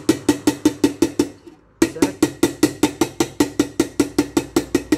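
Claw hammer tapping rapidly on the metal rim of a pressure cooker, about eight light ringing knocks a second with a brief pause about a second and a half in. The taps level a raised spot on the rim so the lid can seal again.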